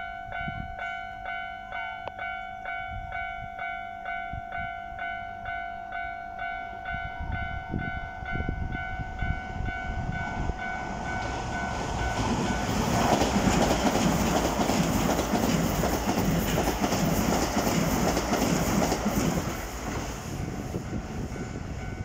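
Japanese level-crossing warning bell ringing in an even rhythm of just under two strikes a second. A Toei 5500-series electric train then passes the crossing; its wheel and running noise rises about ten seconds in, is loudest for about six seconds and covers the bell, then fades toward the end.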